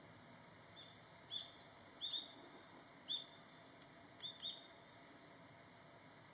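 Long-tailed rosefinches giving short, high whistled calls, about seven in all, several in quick pairs.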